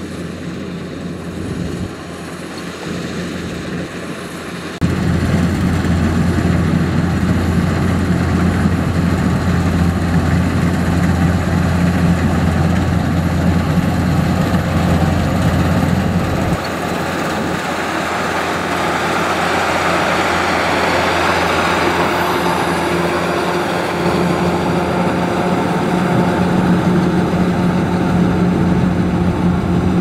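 Kubota DC-105X combine harvester running under load as it cuts and threshes rice: a steady diesel engine drone with the whir of the threshing machinery. The loudness jumps up abruptly about five seconds in and shifts again twice later on.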